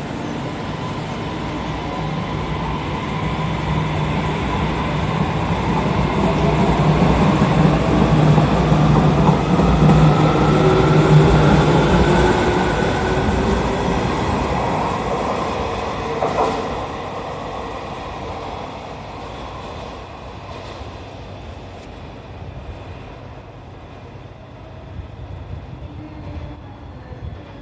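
JR Kyushu 815 series electric train pulling out of the station: its traction motors whine, rising in pitch as it accelerates past over the rumble of the wheels. The sound swells to its loudest about ten seconds in, then fades as the train leaves.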